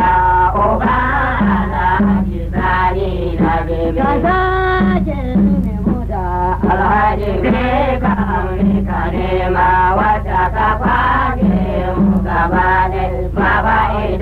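Hausa praise song: a male voice sings in a chanting style over a low beat that recurs about once a second, with a steady low hum underneath.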